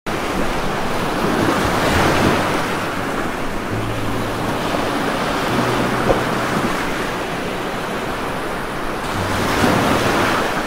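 Heavy rain falling steadily, a dense even hiss, with one sharp tap about six seconds in.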